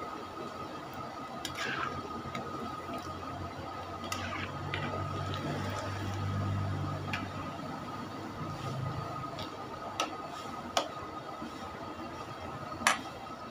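Chicken pieces deep-frying in a large aluminium wok of hot oil, sizzling and bubbling steadily, with occasional sharp clinks and scrapes of a metal spatula against the pan, the loudest near the end.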